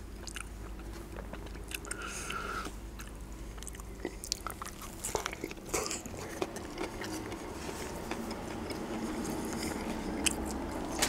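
Close-up biting and chewing of a double bacon cheeseburger, with scattered small mouth clicks.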